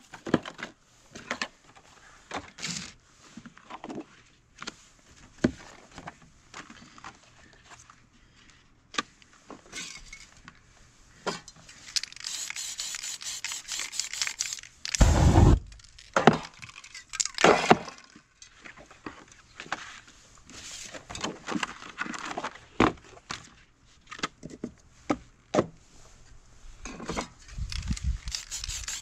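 Spray-painting work sounds: scattered taps, clinks and knocks of spray cans and paper masks handled on the work surface, with hisses of aerosol spray paint about halfway through and a loud low thump right after them.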